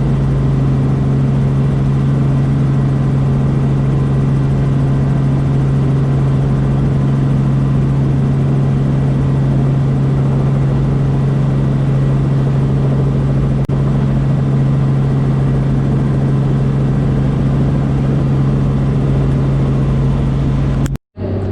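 Steady drone of a helicopter in flight, heard from inside the passenger cabin: one unchanging low hum with its overtones. It cuts off abruptly near the end.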